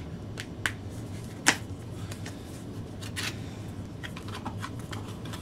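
Cardboard box being handled and opened by hand, with scattered rustles, scrapes and clicks of cardboard and plastic packaging; one sharp click about a second and a half in is the loudest.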